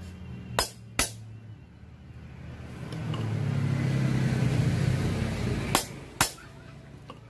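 Sharp hammer blows on a steel machete blade resting on a wooden stump: two about a second in and two more near the end. Between them a louder low rumble swells up and dies away over about three seconds.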